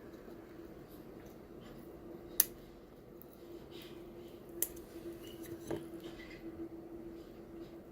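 A few small sharp clicks of tiny parts and tools being handled at a workbench, two of them about two and a half and four and a half seconds in, with a softer knock shortly after, over a steady low hum.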